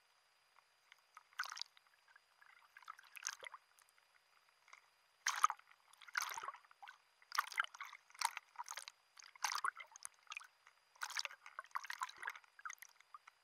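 Choppy sea water sloshing and splashing at the surface, heard in irregular bursts about once a second with short quiet gaps between.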